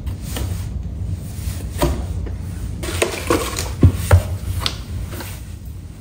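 Plastic clicks and knocks from an Arno table fan being taken apart by hand, its grille and three-bladed blade handled and pulled off, with two louder knocks near the middle.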